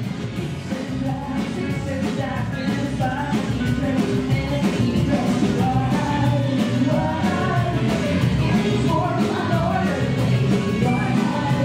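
Dance music with a singing voice over a steady beat, growing louder over the first few seconds.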